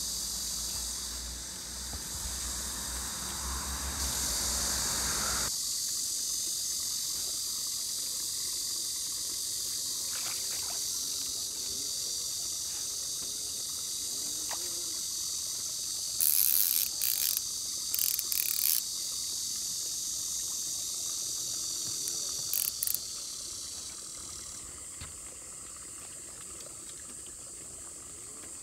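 A steady, high-pitched insect chorus, with several short, louder shrill bursts a little past halfway through and a low rumble during the first five seconds.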